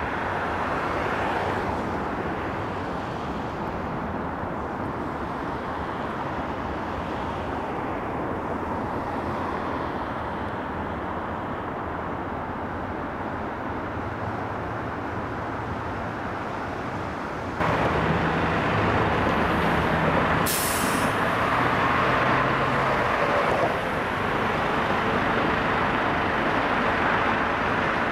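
Steady city traffic noise. About two-thirds through, the level jumps suddenly to louder traffic with a vehicle engine's low drone. A brief sharp hiss follows soon after.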